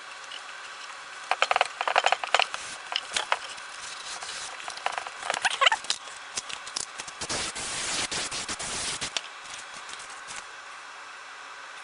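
Clicks and rattles of hand work with small tools and parts, then a steady hiss lasting about two seconds.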